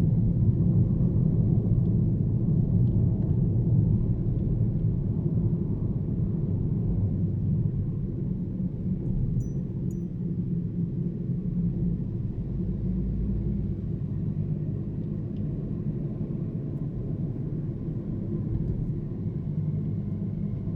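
Car travelling on a highway: a steady low rumble of engine and road noise that eases off slightly over the second half.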